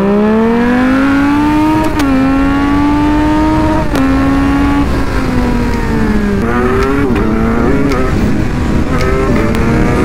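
Sport motorcycle engine accelerating hard up through the gears. The pitch rises and drops back at each upshift, about two and four seconds in, each with a short click. After about five seconds it falls away as the throttle closes, with short revs near the end.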